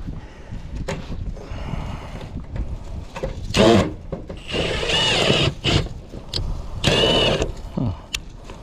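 Cordless drill driving roofing screws through a metal ridge cap: the motor whirs in three short bursts, about midway through and near the end.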